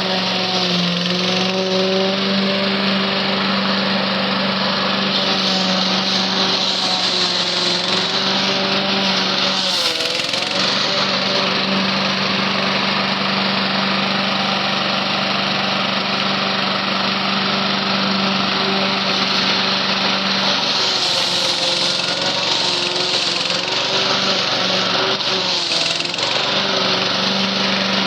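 Husqvarna lawn mower's small petrol engine running steadily, its pitch dipping briefly about ten seconds in and wavering a few times near the end.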